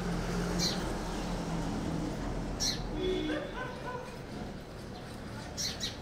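House sparrow chirping: a few short, high chirps spread a couple of seconds apart.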